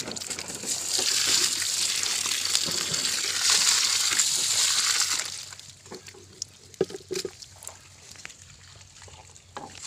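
Wet splashing and sloshing for about five seconds, then it drops away to a few scattered taps and rustles.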